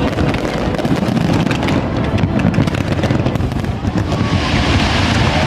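Aerial fireworks going off in quick succession: a continuous rumble of booms with many sharp cracks, and a hiss joining in about four seconds in.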